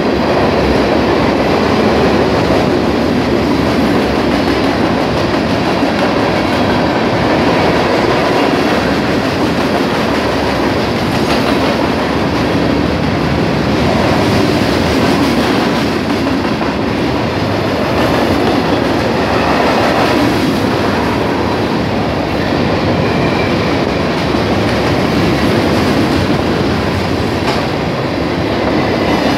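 Freight train of ballast hopper cars rolling past at close range: a steady rumble of steel wheels on rail, with wheels clicking over the rail joints.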